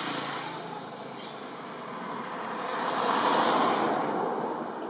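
A vehicle passing by: a steady rush of road noise that swells, dips, then builds to its loudest about three and a half seconds in and fades away.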